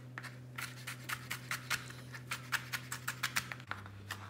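Chef's knife chopping tomato on a plastic cutting board: quick, even taps of the blade on the board, about five a second, starting about half a second in.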